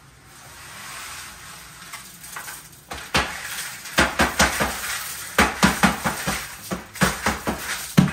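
Soupy wet concrete mix being tipped out of a plastic five-gallon bucket. From about three seconds in it slops and splats out, with repeated knocks on the bucket that come faster and more evenly near the end, shaking the last of it loose.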